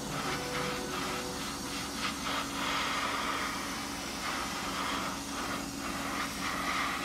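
Gravity-feed airbrush spraying paint with a hiss that swells and eases every fraction of a second as the trigger is worked, over a steady rush of air.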